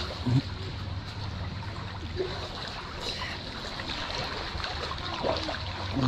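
Shallow creek water flowing and trickling around a swimmer drifting with the current, with a steady low rumble underneath. A brief louder sound comes just after the start.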